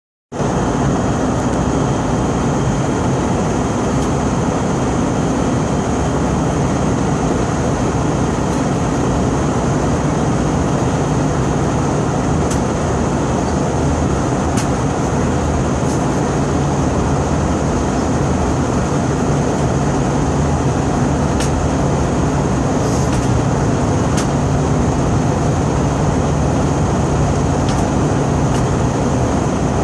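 Airliner on its landing approach: steady engine and airflow noise with a low hum underneath, a faint high whine and a few light clicks.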